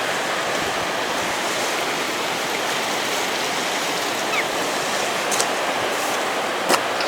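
The River Lune running high after flooding, a steady rush of water, with a couple of brief clicks near the end.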